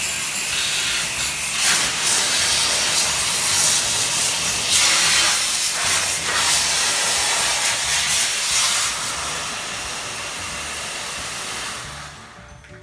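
Water spray hissing against an air conditioner during cleaning, swelling and easing in stretches, then stopping about twelve seconds in.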